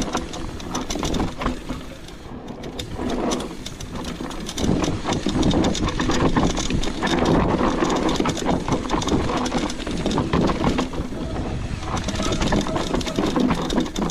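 Mountain bike being ridden down a bike-park trail: tyres rumbling over dirt and rocks with rattling clicks from the bike over the bumps.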